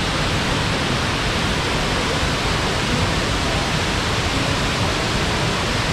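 Burney Falls waterfall rushing steadily as its water plunges into the pool below, an even, unbroken noise across all pitches.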